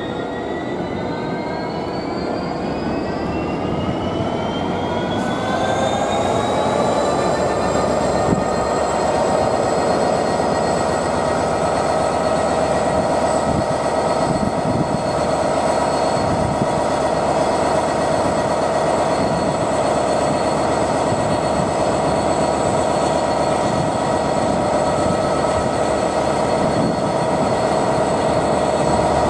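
A train running, with a whine of several tones that rise in pitch over the first seven seconds or so and then hold steady over a constant rumble.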